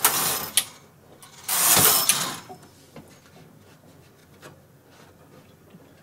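The knit (K) carriage of a KH585 push-button knitting machine sliding across the needle bed to knit two rows: two rasping mechanical passes, the second starting about a second and a half in. A few faint clicks follow.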